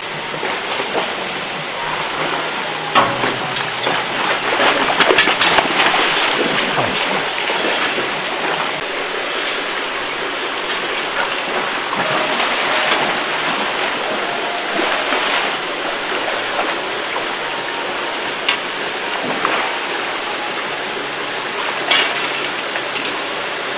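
Steady rush of water with irregular splashes, loudest a few seconds in: a hooked giant grouper thrashing at the surface beside the pond wall as it is fought.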